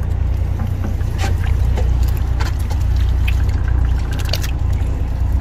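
A boat's engine running with a steady low drone, with wet splashes, trickling water and scattered clicks from water sloshing on the deck.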